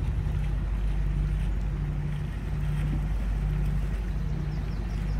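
Boat engine running at low speed, a steady low hum with a slow regular throb about once a second, over water and wind noise.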